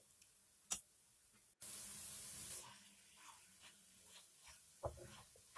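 A brief hiss of ghee sizzling in hot carrot halwa for about a second, followed by faint scrapes of a wooden spatula stirring the halwa in a nonstick kadai, with a single knock near the end.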